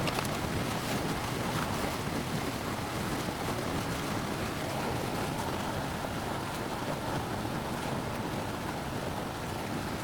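Steady rushing noise, even across low and high pitches, with a few faint clicks over it.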